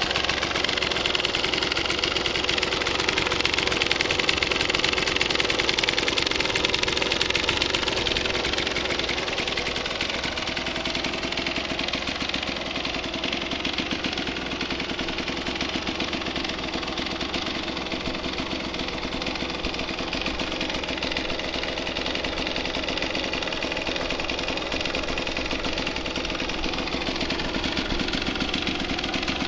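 Kawasaki KMX 125's single-cylinder two-stroke engine idling steadily, with an even, rapid firing pulse. It is a little louder for the first several seconds, then settles.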